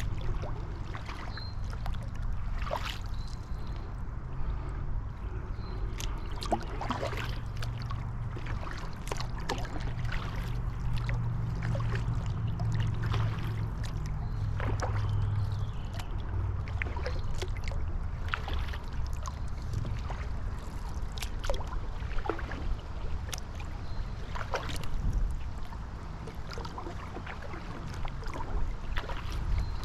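Wind rumbling on an action camera's microphone while on a kayak, with scattered small splashes and drips of water.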